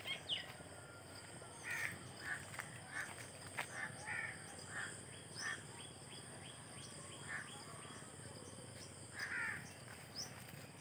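Crows cawing: a string of short caws, coming thick and fast in the first half and more sparsely later.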